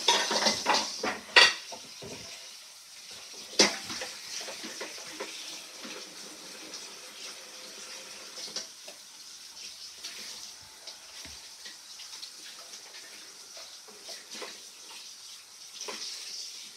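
Rubber spatula spreading a wet spinach filling over phyllo dough: soft scraping and crackling of the pastry, with a few sharper taps in the first few seconds.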